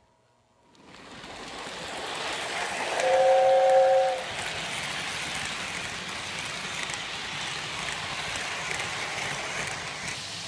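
Lionel Polar Express model steam train pulling away and running close past on its track, with a steady rumble of wheels and motor that builds over the first couple of seconds. About three seconds in, it sounds a two-note whistle for about a second, the loudest part.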